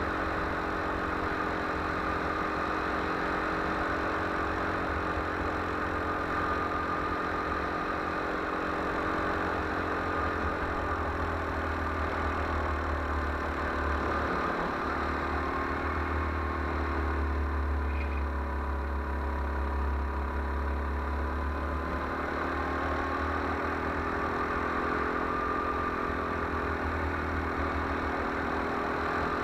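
Go-kart engine running under way, heard from the kart itself, its pitch sagging in the middle and rising again as the kart slows and speeds up round the circuit, over a steady low rumble.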